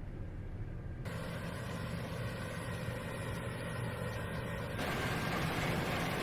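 CLAAS Lexion 8800 combine harvester running as it harvests barley: a steady low engine hum. A rushing machine noise joins abruptly about a second in and gets louder near the end.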